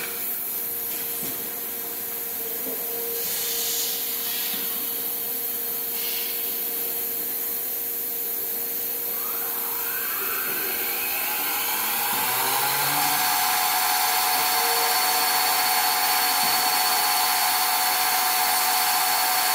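TANAC AW8808 eight-spindle coil winder running over a steady hiss. About ten seconds in, its spindles speed up with a rising whine, then hold a steady high whine at full speed.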